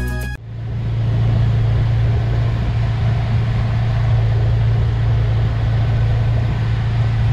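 Motorboat engine running steadily underway: a low, even drone under a constant rush of water and wind. It cuts in abruptly about half a second in.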